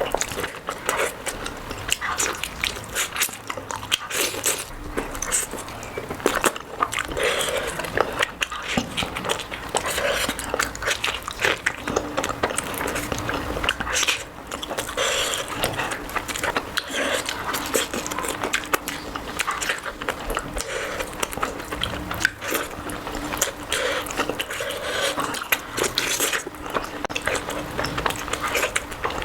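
A person eating close to the microphone, biting and chewing food, with many small mouth clicks throughout.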